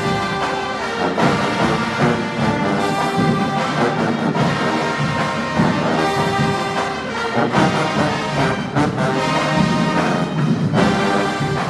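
Marching band playing loudly, the brass section holding full sustained chords and melody lines.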